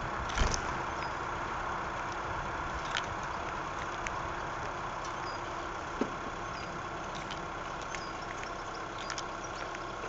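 Steady low hum with scattered sharp clicks and taps, fitting a blackbird and great tits pecking and landing on a wooden seed tray; the loudest tap comes about half a second in. A few faint, high, short chirps.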